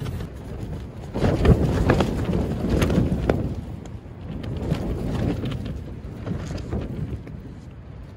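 Strong gusts of wind buffeting a Hilleberg Nammatj 3GT tent, the fabric flapping and rattling in an irregular rush. The rush swells hard about a second in, eases, swells again around five seconds and dies down near the end.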